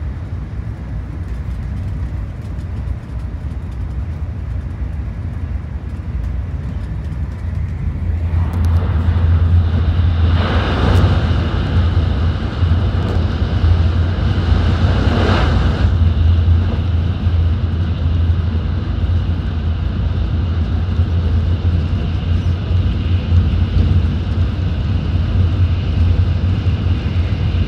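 Running noise inside a Tokaido Shinkansen car travelling at high speed through a station without stopping: a steady low rumble that grows louder about eight seconds in, with two brief rushing surges around eleven and fifteen seconds.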